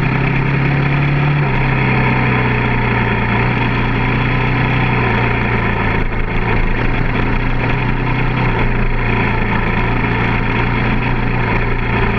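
KTM 450 enduro motorcycle's single-cylinder four-stroke engine running steadily under way on a dirt track, its engine note stepping down slightly about a second and a half in.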